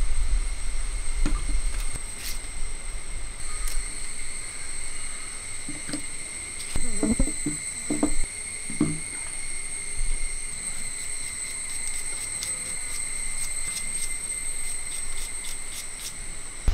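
A big kitchen knife slicing through a raw onion, with a run of quick, crisp cuts in the later part. Midway come a few duller sounds of a hand working in a clay pot. A steady high-pitched drone runs underneath throughout.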